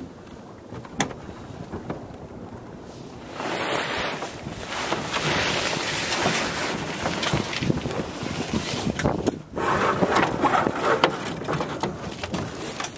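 Wind buffeting the microphone aboard a sailboat under sail. It is moderate at first and turns loud and gusty about three seconds in, with a crackle of sailcloth luffing as the boat comes about.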